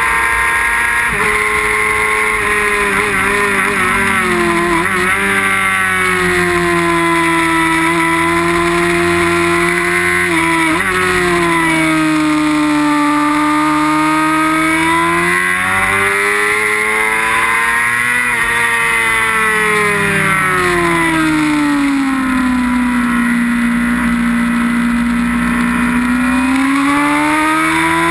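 Sportbike's inline-four engine at race pace, its revs climbing and falling in long sweeps through gear changes and corners. There is a sharp drop in revs about ten seconds in and a long low stretch late on before it climbs again. Steady wind rush on the bike-mounted microphone runs under the engine.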